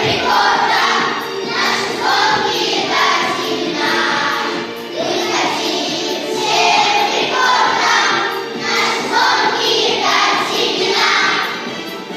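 A group of children singing a song together over backing music.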